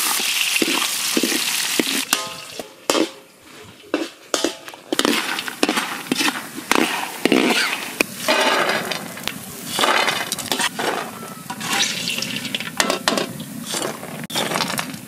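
Bori (sun-dried lentil dumplings) sizzling in hot oil in an aluminium kadai, a steady hiss that drops away about two seconds in. After that a perforated metal ladle scrapes and knocks against the pan in irregular strokes as the dumplings are stirred and lifted out, with occasional clinks.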